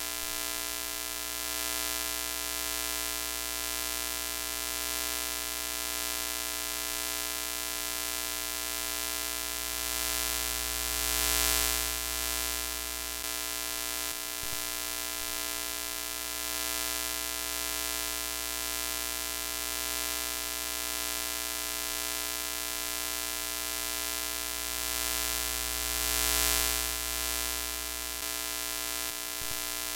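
Broken-TV static glitch sound effect: a steady electrical buzzing hum under a layer of static hiss, swelling louder briefly about a third of the way in and again near the end.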